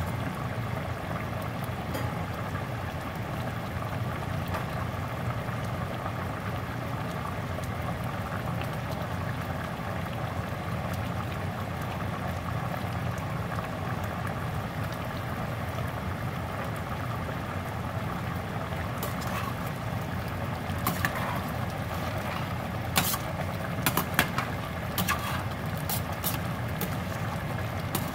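Pork stew bubbling at a steady simmer in a stainless steel pot, a constant bubbling hiss with a low hum underneath. In the last several seconds a spoon clinks and scrapes against the pot as the stew is stirred.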